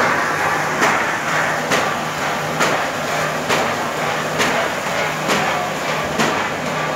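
Duplex paper roll-to-sheet cutting machine running: a steady mechanical whirr and hum with a sharp clack a little faster than once a second, the rhythm of its cutter chopping the paper web into sheets.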